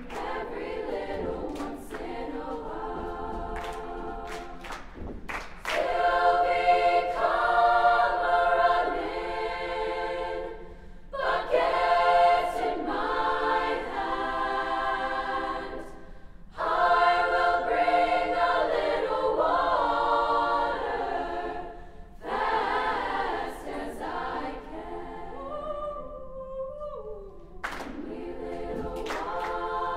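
Women's choir singing a cappella in several parts, with hand claps keeping time. The sung phrases come in loud stretches broken by short pauses, and near the end a single high line slides down in pitch.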